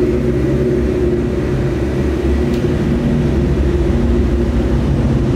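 Supercar engines running steadily at low revs inside a pit garage, the nearest an Audi R8's V10 as the car rolls slowly through.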